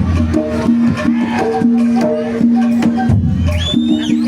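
Live jaranan ensemble music: a held melody note with a few shifting higher notes over quick, busy drum and percussion strokes. Near the end, high gliding sounds ride over the music.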